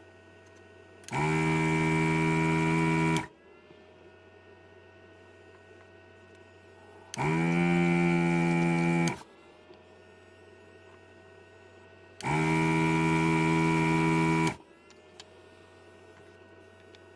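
Katsu ZD-8915 desoldering station's built-in vacuum pump buzzing in three spells of about two seconds each, five to six seconds apart, as the gun sucks molten solder off circuit-board pins. Each spell rises in pitch as the pump starts and winds down in falling tones when it stops. Between spells the station's fan hums steadily.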